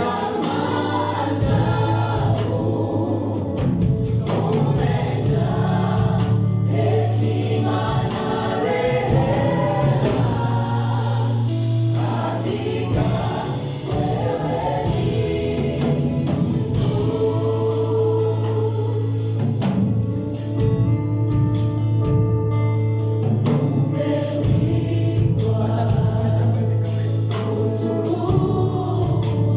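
Church choir singing gospel worship music with instrumental accompaniment, over a steady low bass note.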